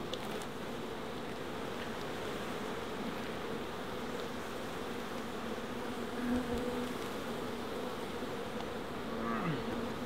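Steady, dense buzzing of a large mass of honeybees stirred up as their comb is cut out and lifted by hand. A louder buzz passes close just past halfway, and another near the end drops in pitch.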